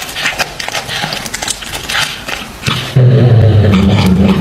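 House cat crunching and chewing on a rat it has caught, in quick irregular cracks. About three seconds in, a loud, steady low growl takes over to the end.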